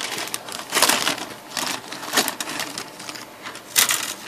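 Clear plastic bag crinkling and rustling as hands handle plastic model kit sprues inside it, with the plastic parts clicking against each other. It comes in irregular bursts, loudest about a second in and near the end.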